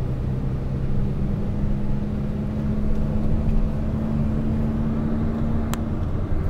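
Car's engine and road noise heard from inside the cabin as it drives along, a steady drone with one sharp click near the end.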